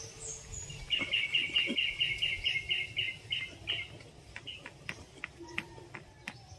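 A bird calling in a rapid run of short, high notes, about five a second and slowing slightly, for about three seconds. Then a few sharp, scattered clicks.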